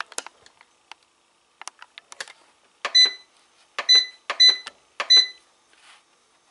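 Electronic bread machine control panel beeping as its buttons are pressed to set the sweet-bread program: four short, high beeps between about three and five seconds in, each starting with a button click, after a few lighter clicks and taps.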